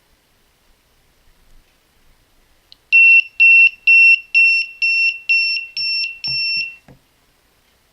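Buzzer of a homemade Arduino coin bank and alarm clock sounding its alarm: about eight short, high, single-pitched beeps at roughly two a second, stopping just before the end with a few light taps.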